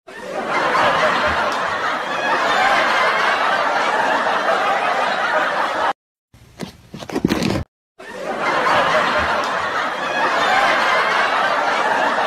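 Crowd laughter from a laugh track, about six seconds long, which cuts off, then plays again for another six seconds. A short patch of brief knocks and rustles comes between the two.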